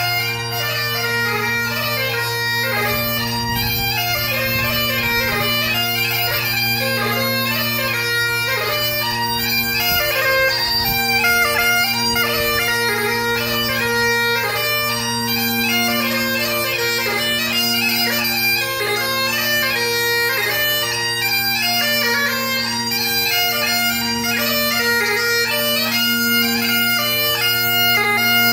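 Great Highland bagpipes playing without a break: the drones sound one steady low chord under the chanter's fast, ornamented melody.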